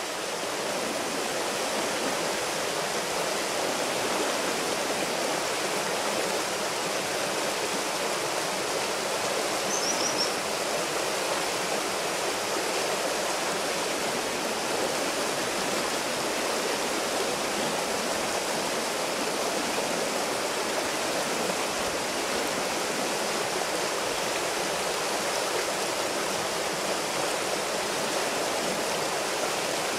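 Rushing water of a shallow, rocky mountain torrent, a steady even rush of rapids and riffles.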